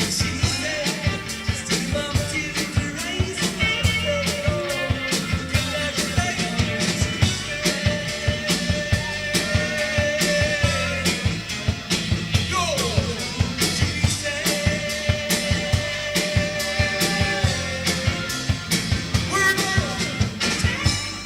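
Live rock and roll band playing: a steady, busy drum-kit beat and bass under sustained melodic lead notes, with a short falling slide about halfway through.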